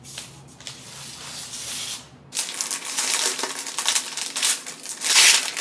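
Paper wrapping rustling and crinkling as it is pulled open off a framed picture, louder from about two seconds in.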